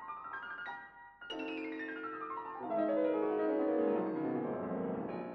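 Background piano music, with a long run of notes falling in pitch from about a second in.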